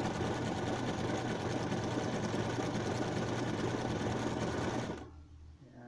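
Electric sewing machine running steadily, its needle stitching a zigzag seam through a paper practice sheet, then stopping sharply about five seconds in.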